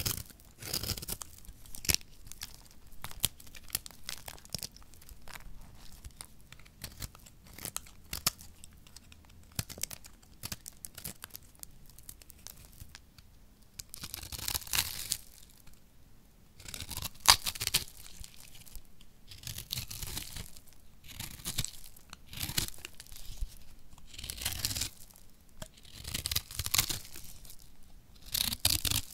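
Knife blade cutting and scraping dry, crumbly soap: a string of crisp scraping strokes as shavings and crumbs break off, the strokes longer and louder in the second half.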